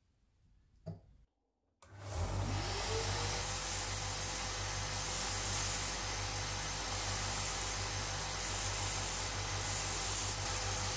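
Soft handling sounds, then a bench belt sander switched on: its motor whines up in pitch over about a second and settles into a steady running hum and whir as the end of a wooden screwdriver handle is sanded on the belt.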